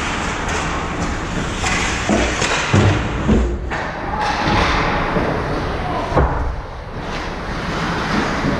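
Ice hockey play in a rink: several sharp thuds and knocks over a steady noisy haze, with voices in the background.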